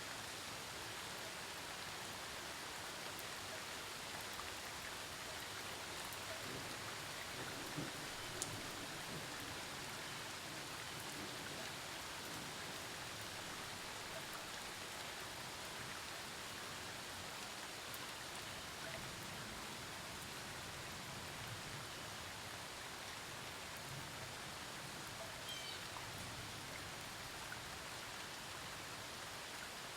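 Steady rainfall from a thunderstorm, an even hiss with occasional separate drops landing close by, a louder one about eight seconds in.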